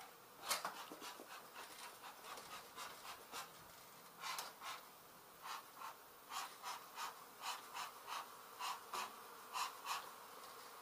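A person breathing hard in short, quick breaths close to the microphone, the puffs often coming in pairs, over a faint buzz of honey bees.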